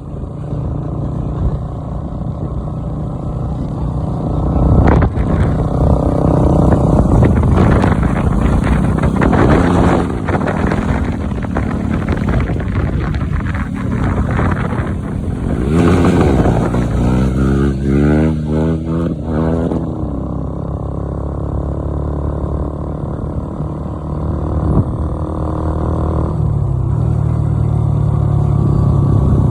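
KTM Duke motorcycle engines running hard at speed, revving up and down through the gears. The engine pitch sweeps up and down several times in the middle.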